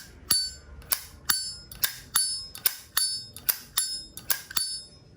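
Vintage Zippo lighter's hinged lid being flicked open and snapped shut over and over, a dozen or so sharp metallic clicks with a brief bright ring after each, about two to three a second; the clean ringing click is the 'sound' collectors judge a Zippo by.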